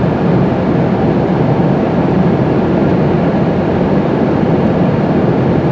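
Steady road and engine noise inside a moving car's cabin, a constant low rumble that neither rises nor falls.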